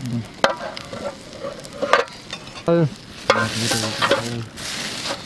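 Tomato masala and water for pulao sizzling and bubbling in a metal pot over a wood fire, with two sharp clicks in the first two seconds.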